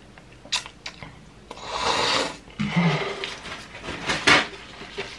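Close-up mouth sounds of eating spicy ramen noodles: a loud noodle slurp about two seconds in, then wet chewing with sharp lip-smacking clicks near the end.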